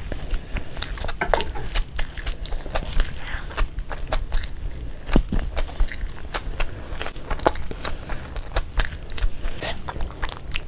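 Close-up chewing and mouth sounds of someone eating a gravy-dipped burger by hand, with many irregular sharp clicks and smacks.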